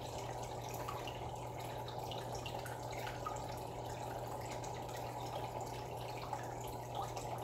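Aquarium water circulation and aeration running: a steady trickle and bubble of water with small drip-like splashes scattered through it, over a low steady hum.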